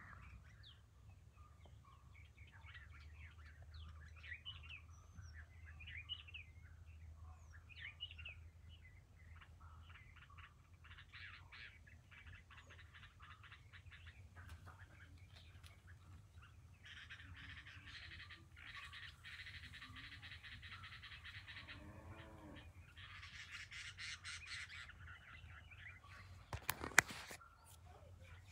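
Birds chirping and calling again and again over a steady low hum, thickening into denser chatter in the second half; a sharp knock near the end is the loudest sound.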